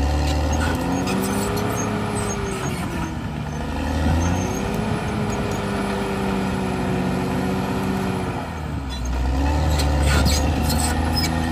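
Caterpillar D6R crawler dozer's diesel engine working hard, its pitch sagging and rising again about three times. The rumble is heaviest at the start and again near the end, with scattered clanks and knocks.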